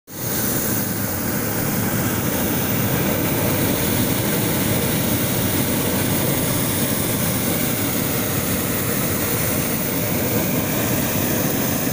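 Hot air balloon's propane burner firing in one long continuous burn, a steady loud rushing blast.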